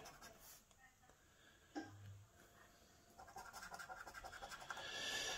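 A coin scraping the silver latex off a paper scratchcard in quick, rapid strokes, starting a little over three seconds in.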